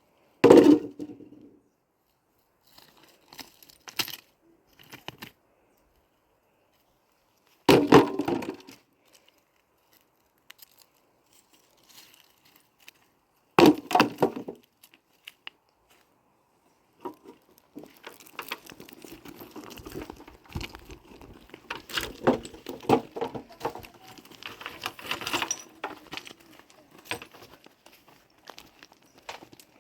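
Three heavy knocks or thuds about six seconds apart, each trailing off in a short rattle, followed by a long stretch of irregular rustling and clattering.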